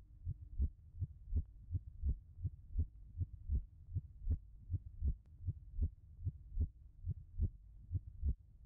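Heartbeat sound effect: even, low thuds about three a second over a faint steady hum.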